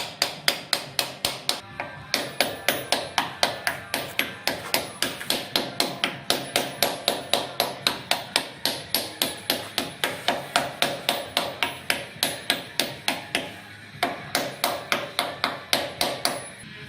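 Steady hammer blows on metal, about four a second, each with a short ringing, pausing briefly about two seconds in and again near fourteen seconds: the shaft and its tapered bearing being knocked into place in a K62 lathe's headstock.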